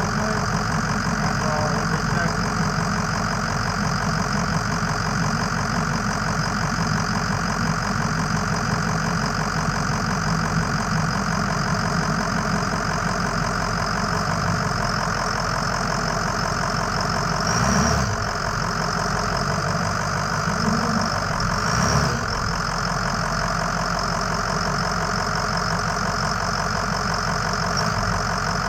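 Ford F-250 pickup's engine idling steadily, warming up so the freshly topped-up automatic transmission fluid can be checked hot. Two brief thumps about two-thirds of the way through.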